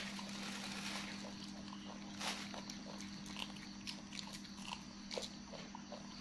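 A baby macaque handling and eating raw green beans: small, scattered crunching and snapping clicks, one sharper click about two seconds in, over a steady low hum.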